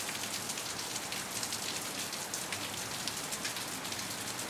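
Steady rain falling: an even hiss dotted with the fine patter of drops.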